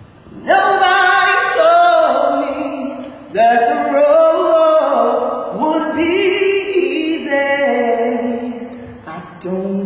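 A man singing unaccompanied into a handheld microphone: several long phrases of held notes, the first starting about half a second in, with short breaths between them.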